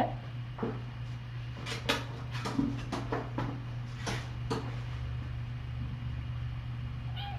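Steady low hum with scattered light knocks and rustles over the first four or five seconds, then only the hum.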